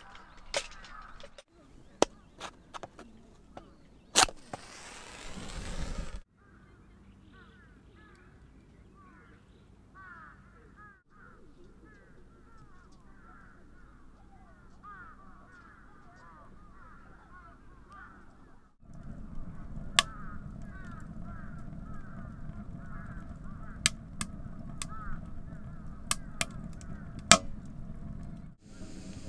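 Many short bird calls repeat over and over, like a flock calling. Over the last third, a wood fire in a wood-burning stove crackles with a low rumble and several sharp pops.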